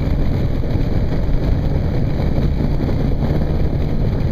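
Motorcycle riding at highway speed: a steady engine drone under constant wind rush on the microphone.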